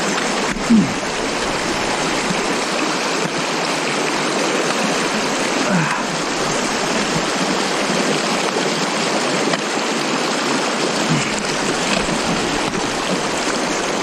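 Creek water rushing steadily over rocks, with a few brief louder sounds over the flow, the loudest about a second in.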